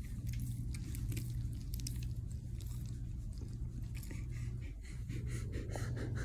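Steady low room hum with soft, close rustling and small clicks of fur and fabric against the phone microphone as the German Shepherd is held against it.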